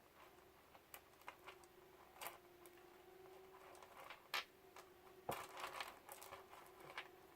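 Beads of an elastic bracelet clicking and tapping together as it is handled and threaded: a scattering of small irregular clicks, the loudest about four seconds in and a quick run of them just after five seconds, over a faint steady hum.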